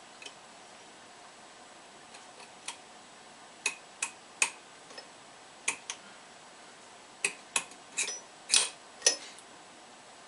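Steel spacer rings clicking and clinking against the lathe spindle and its bearing as they are fitted by hand: scattered sharp metallic clicks, coming closer together and louder in the last few seconds.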